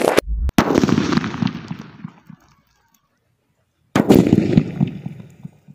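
Homemade desi bomb in an iron tin packed with lime powder exploding and bursting the tin. A sudden bang comes about half a second in and dies away over a second or so. After a silent stretch a second bang follows about four seconds in.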